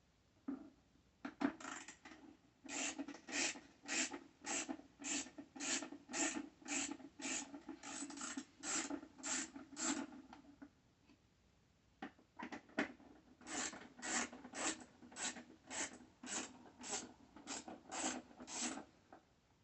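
Ratchet wrench with a Torx bit being swung back and forth to back out the bolts on a pancake air compressor's cover, its pawl rasping on each stroke. The strokes come about two a second in two runs, with a short pause near the middle.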